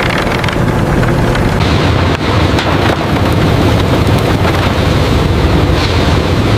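Heavy machinery engine running steadily: a low drone under a broad, even rumble, with no breaks.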